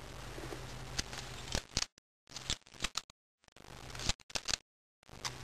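Balisong (butterfly knife) being handled, its metal handles and latch clicking in small irregular groups, over a low steady hum.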